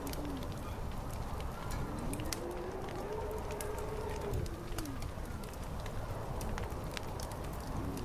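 Fire crackling with frequent sharp pops over a low rumble, while wind howls in slow tones that rise and fall, one long gust from about a second and a half in to around the five-second mark.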